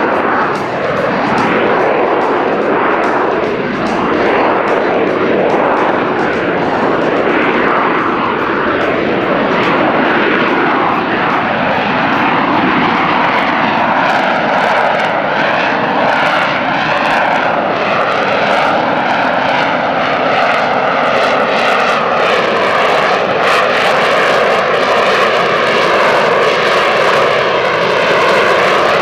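McDonnell Douglas AV-8B Harrier II jet engine, a Rolls-Royce Pegasus turbofan, running loud and steady, with tones in the noise sliding slowly down in pitch over the second half.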